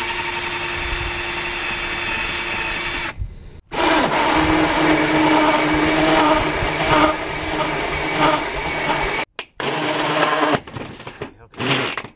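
Black & Decker 18-volt cordless drill driving a hole saw through a corrugated metal wall: a steady run, a brief stop about three seconds in, a long run with the pitch wavering under load, then short on-off bursts near the end.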